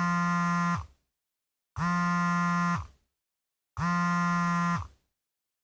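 An electronic buzzer tone sounding three times, each about a second long and starting every two seconds, with silence between.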